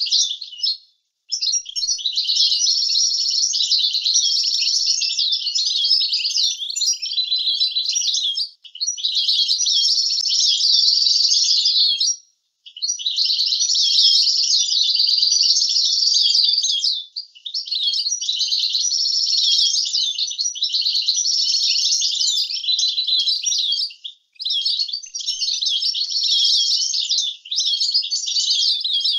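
European goldfinch singing a long, high twittering song in phrases several seconds long, with a few short held notes, broken by brief pauses about five times. It is a tutor song used for teaching young goldfinches.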